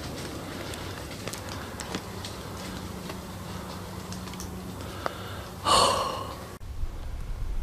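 A single rifle shot from a .243 Savage, sudden and fading away within about a second, a little over two-thirds of the way in; before it only faint woodland quiet.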